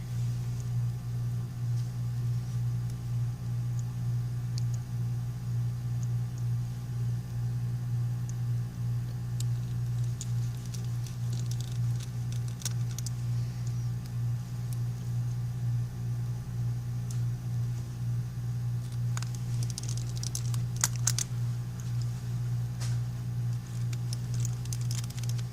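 A steady low hum, with faint small clicks and taps of small tools and parts as an iPhone 5c is put back together. The clicks start about halfway through and come more often near the end.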